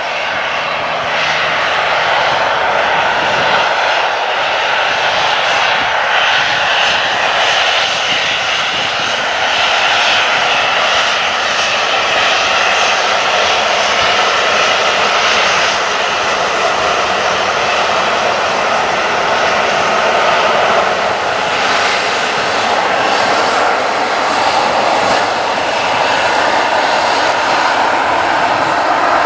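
Airliner engines running, a loud, steady noise that neither clearly rises nor falls.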